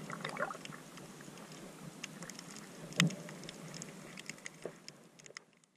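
Muffled underwater sound through a waterproof camera housing: a low hiss of water with scattered sharp clicks and one louder knock about three seconds in, fading out near the end.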